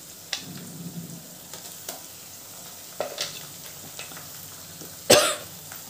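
Onions and tempering spices sizzling in oil in a kadai, with ground green coriander-chilli paste just added on top. A few light clicks come through the steady sizzle, and a louder knock about five seconds in.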